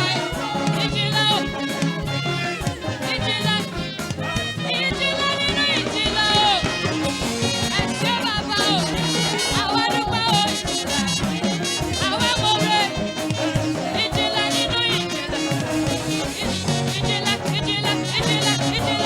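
Upbeat praise-and-worship music with voices singing over a steady drum beat.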